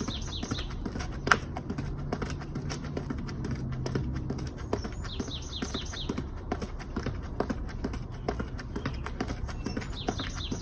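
Sneakers tapping quickly on a concrete step in an even alternating rhythm as feet touch the step one after the other, with a sharper knock about a second in.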